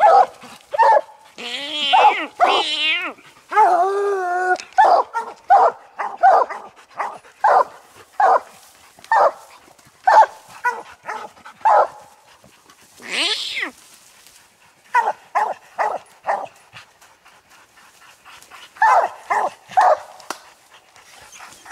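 Coonhounds barking treed at the base of a tree: a steady chop of barks about one a second, with a drawn-out howl a few seconds in and a rising and falling bawl midway, then a short lull before the barking picks up again. This is the tree bark that signals a raccoon up the tree.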